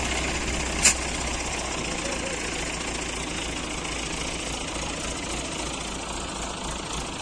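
Heavy machine's engine idling steadily, with a single sharp click about a second in.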